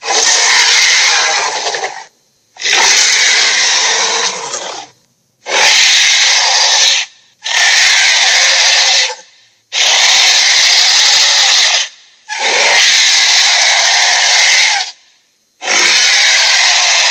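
Dragon roar sound effects: a series of loud, raspy roars, each about two seconds long, separated by short gaps, about seven in a row.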